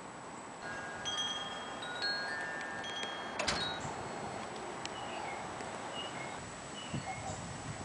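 Hanging metal chimes ringing, several clear tones at different pitches sounding one after another and overlapping, with a single sharp knock about three and a half seconds in.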